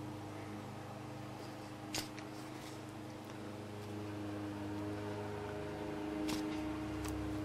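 A steady low mechanical hum with a few faint level tones in it, broken by a sharp click about two seconds in and two more near the end.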